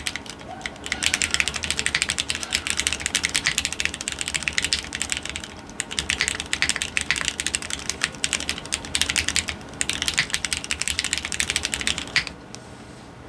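Fast typing on a GEONWORKS F1-8X mechanical keyboard with Cherry MX Hyperglide Black linear switches: a rapid run of keystrokes with two short pauses, stopping shortly before the end.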